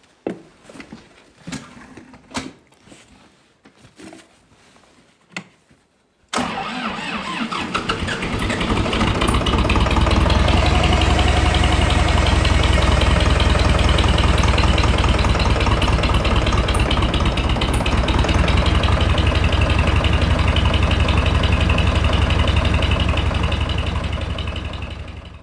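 After a few faint clicks, the John Deere 3020 PowerShift's four-cylinder diesel engine cranks and catches about six seconds in, then settles into a loud, steady run. It is a cold winter start, made possible by an overnight block heater.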